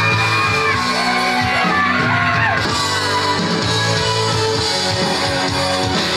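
Loud music playing with singing, and people yelling and whooping over it.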